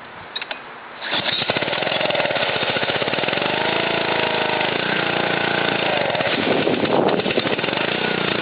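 Honda 5 hp pressure washer engine catching on a cold start about a second in and then running steadily, its pitch rising and falling briefly in the middle.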